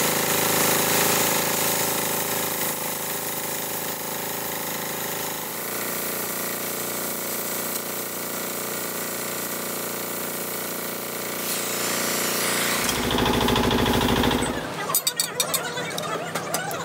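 Oxy-fuel cutting torch hissing steadily as it cuts through curved steel plate for a truck brake shoe. Near the end a loud low buzz lasts about two seconds, followed by a run of sharp taps.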